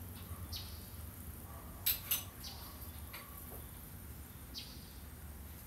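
Small hand-tool clicks and metallic clinks from fitting a disc onto a 4½-inch angle grinder, with a sharp pair about two seconds in, over a faint steady low hum.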